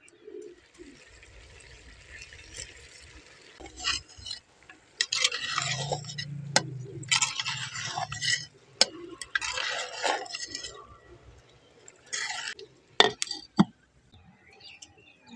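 Wooden spatula stirring and scraping potatoes and greens in a clay cooking pot, in a series of separate strokes. Near the end a clay lid is set on the pot with two sharp clinks.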